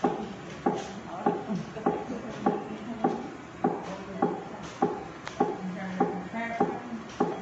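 Fetal heart monitor's Doppler speaker playing a baby's heartbeat: an even whooshing pulse a little faster than once every 0.6 seconds, about 100 beats a minute.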